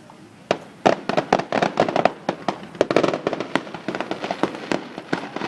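Fireworks going off in a rapid, dense barrage of bangs and crackling pops, beginning about half a second in.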